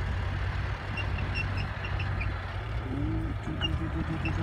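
Small crawler bulldozer's diesel engine running steadily under load as it pushes a mound of dirt. Short high chirps sound over it, and from about three seconds in a rising, then pulsing, tone joins the engine.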